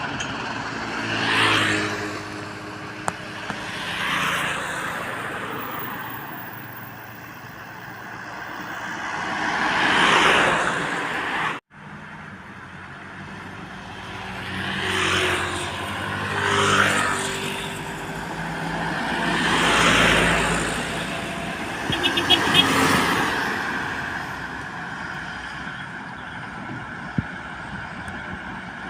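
Heavy trucks and other traffic passing by on a highway one after another, each engine and tyre noise swelling as it approaches and fading as it goes; about seven pass-bys. The sound cuts out for an instant near the middle.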